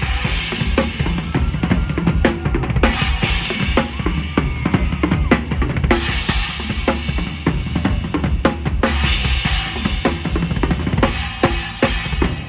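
Drum kit played live in a mor lam band, heard from beside the kit: rapid kick and snare strokes with fills, and cymbals washing in and out in stretches of a few seconds.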